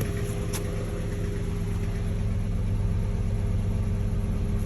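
2006 Infiniti M35's 3.5-litre V6 idling steadily, with one light click about half a second in. The engine has a random misfire (code P0300) that new spark plugs and a new bank 2 camshaft sensor have not cured.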